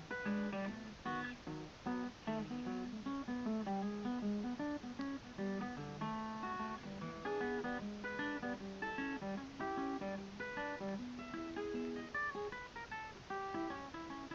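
Background music: an acoustic guitar playing a steady melody of plucked notes.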